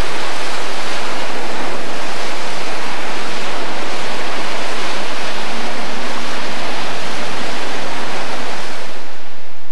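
Loud, steady static hiss from a videotape, spread evenly from low to very high pitch, fading out near the end.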